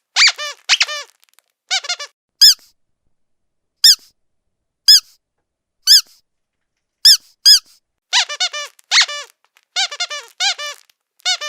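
Squeaky dog toy squeezed over and over. It gives quick runs of squeaks at first, then single sharp squeaks about a second apart through the middle, then quick runs again near the end.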